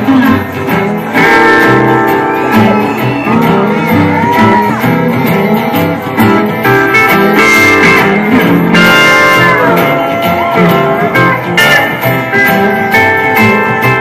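Live band playing a boogie/western-swing number: a steel guitar plays sliding, held notes over strummed acoustic guitar and a steady rhythm.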